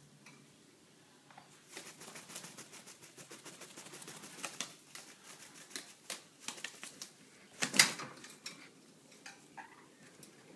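Baby African grey parrot flapping its wings: a rapid run of feathery flutters and clicks against the wire cage it stands on, starting about two seconds in and lasting several seconds, with the loudest flurry about three-quarters of the way through.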